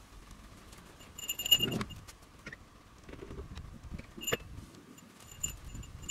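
Metallic jingling, loudest about a second and a half in and again near the end, with a sharp clink just past four seconds and the rustle of a tarp sheet being handled.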